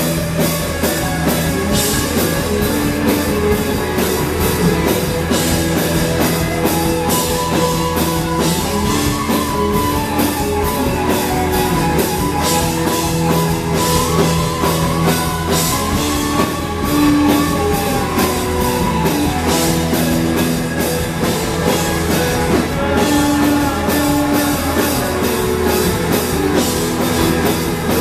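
Live rock band playing a passage with no transcribed singing: electric guitars, bass and drum kit, with a violin among the instruments.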